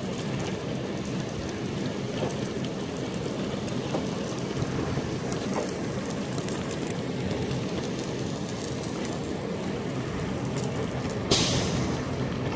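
Sealcoat spraying equipment running steadily, with sealer hissing out of the hand-held spray wands onto the asphalt. A short, loud rustle about eleven seconds in.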